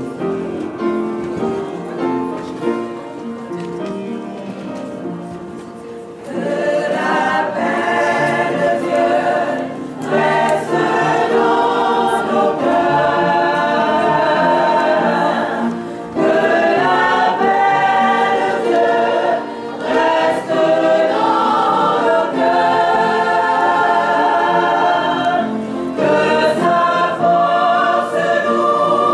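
Church choir singing a hymn together; the singing comes in much louder and fuller about six seconds in.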